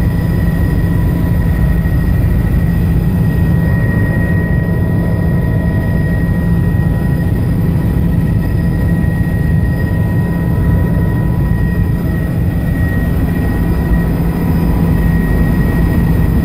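Steady engine and airflow drone heard inside the cabin of a small aircraft in flight. It holds a low, even hum with a faint steady whine above it, unchanging throughout.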